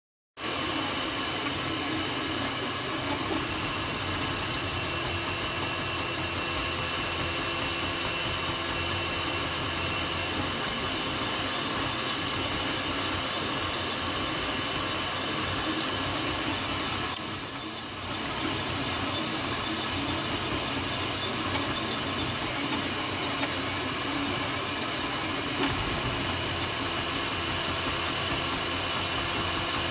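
Steady machine noise, a whir with hiss and several constant tones, which dips briefly about seventeen seconds in.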